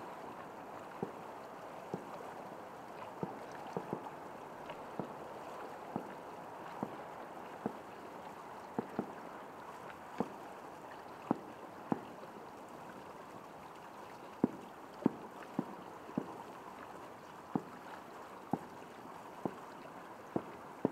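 Distant firework shells bursting: a series of sharp, irregular bangs, roughly one or two a second, loudest about two-thirds of the way through, over a steady rushing background noise.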